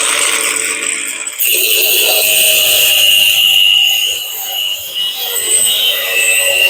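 Macallister 18V cordless angle grinder with a 115 mm cutting disc, running at full speed and cutting through 10 mm steel threaded bar. About a second and a half in, the sound turns harsher and hissier as the disc bites into the steel.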